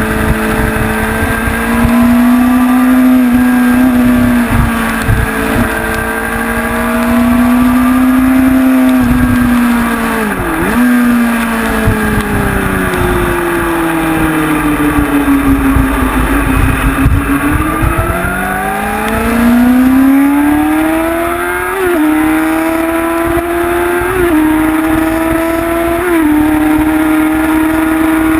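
Honda CBR sportbike's inline-four engine heard from on board at track speed, its note rising and falling: a sharp dip and recovery about ten seconds in, a long slow fall in pitch as the bike slows, then climbing again with three quick upshifts near the end, each a brief drop in pitch. Wind rushes over the microphone.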